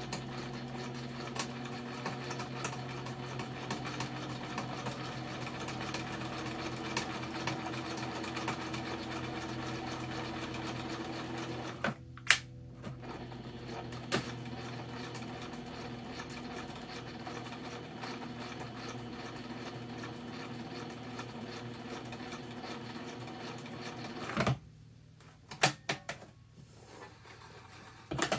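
PFAFF Synchrotronic 1229 sewing machine stitching through cloth at a steady speed. It stops briefly about halfway with a click, then runs again and stops near the end, followed by a few sharp clicks.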